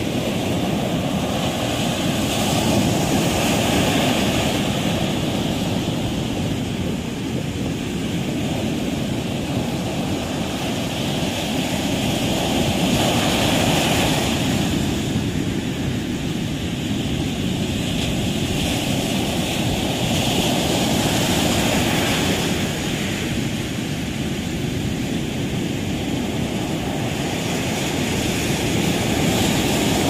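Sea waves breaking and washing up a sandy beach: a continuous rush of surf that swells every eight to ten seconds as each wave comes in.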